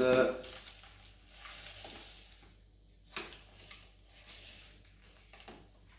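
Crushed meringue being tipped from a plastic bowl into a bowl of whipped cream: a soft, crumbly rustle in short spells, with a light knock about three seconds in.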